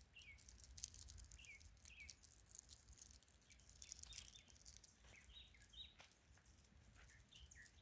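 Faint bird chirps: short, falling high notes repeated every half second to a second, over a low background rumble with scattered faint clicks.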